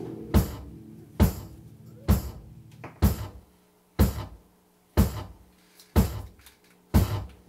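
Drum kit struck in a slow, even beat, about one sharp hit a second, each hit ringing out, over a faint held low tone from the band's amplifiers.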